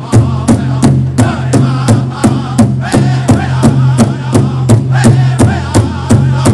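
Pow wow drum and singers: a group of singers chanting together over a big drum struck in a steady beat, about three strikes a second.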